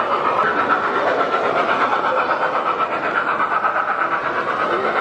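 Model train running along its track, a steady whine with a fast, even clatter of its wheels.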